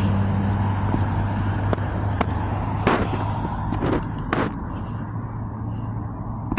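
Steady low hum of a vehicle engine that slowly fades away, with a handful of short sharp knocks in the middle.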